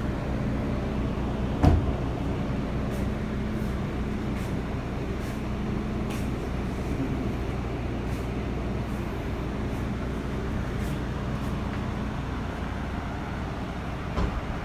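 Steady low hum of the air compressor feeding the windscreen resin injectors, pushing resin into the chips under air pressure. A single sharp knock about a second and a half in and a lighter one near the end.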